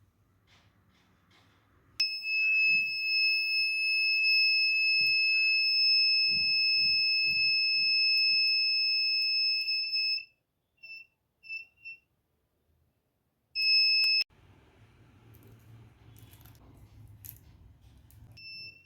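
Buzzer of a homemade laser-and-LDR security alarm sounding a steady high tone for about eight seconds, then three short beeps and one more brief tone near the end. This is the alarm being triggered, which happens when the laser beam falling on the LDR is broken.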